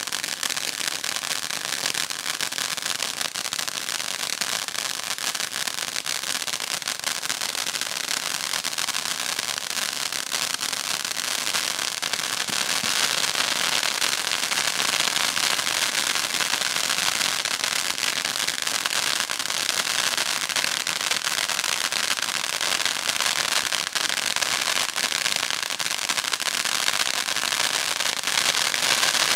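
Dominator 'Insane Intensity' 500-gram firework fountain burning, a dense continuous crackle of popping sparks over a hissing spray. It gets louder around the middle.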